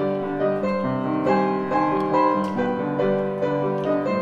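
Background piano music: a gentle melody of sustained notes over chords, changing about twice a second.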